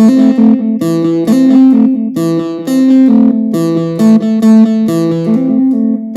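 Darkwave electronic music: a plucked, guitar-like melodic line whose phrase repeats about every 1.4 seconds.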